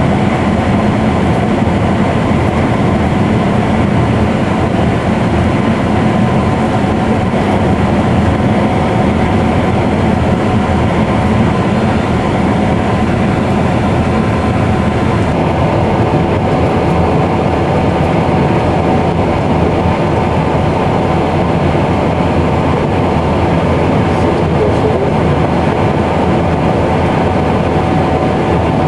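Gleaner S77 combine running steadily while harvesting wheat: a constant heavy mechanical rumble and rattle, with a steady whine running through it.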